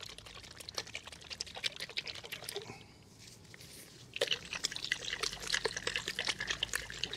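Brush-on chrome paint being poured from a small bottle into a small aluminium tin. It makes a faint trickle with light clicks of bottle and tin, busier from about four seconds in.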